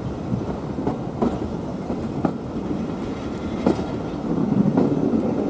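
Passenger carriages of a steam-hauled train rolling along the line, heard from an open carriage window: a steady running rumble with irregular clicks of the wheels over rail joints.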